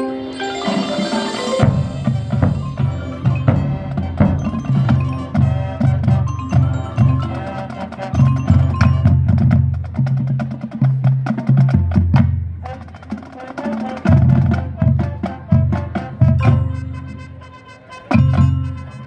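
Marching percussion section playing a fast percussion break: tuned bass drums hit in quick runs across several pitches under snare drum strokes, with mallet keyboard notes ringing above. The playing drops away near the end, then one more loud hit.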